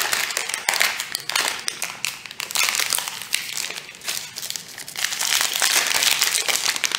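Thin clear plastic bag crinkling and crackling continuously as hands pull and crumple it off a small speed cube.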